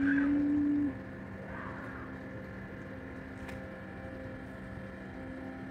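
A horn sounds one blast of about a second at a single steady low pitch, over a steady low mechanical hum.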